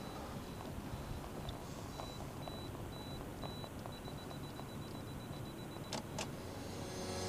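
Camera self-timer beeping, a thin high-pitched beep repeated evenly and then faster from about four seconds in, ending with a shutter click about six seconds in, over a faint steady rumble.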